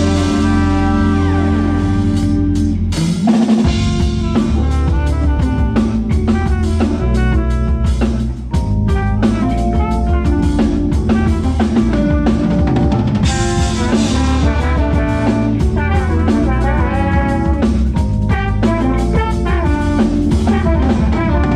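A live band playing an instrumental groove, with drum kit, bass and pitched instruments.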